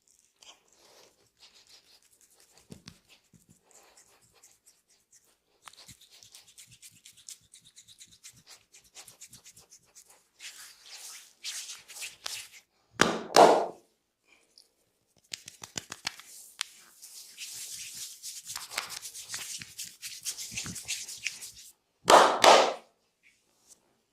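Close-up rubbing and scratching of hands working over skin and hair during a massage, with many small clicks. Two loud rushing bursts come about 13 s and 22 s in.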